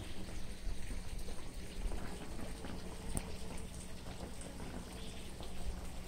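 Clear mountain stream water running and splashing steadily, with many small droplet patters.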